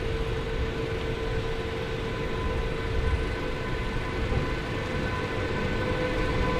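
Electric train at a station platform: a steady high whine with several pitches over a low rumble.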